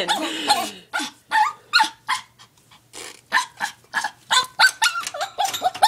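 Yorkshire terrier barking in a run of short, quick yaps, about three a second.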